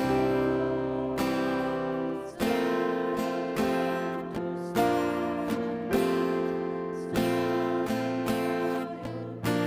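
Instrumental music: an acoustic guitar strumming chords, the chord changing about every second and a quarter.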